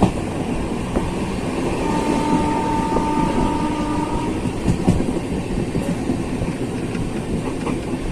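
Train running, a steady rumble, with a held tone sounding for about two seconds in the middle.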